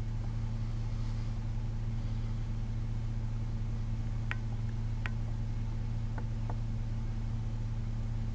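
A steady low mechanical hum, with a few faint clicks about halfway through.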